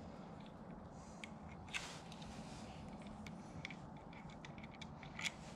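Faint clicks and light scrapes of hand tools and small metal parts as screws are worked out of a motorcycle handlebar control assembly. Two sharper clicks come about two seconds in and near the end.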